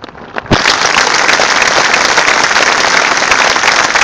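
Large crowd applauding, the clapping breaking out suddenly about half a second in and continuing loud and steady.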